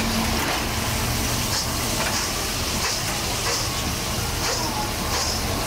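Deep fryer oil sizzling around baskets of fries: a steady hiss over a low hum, with light clicks now and then.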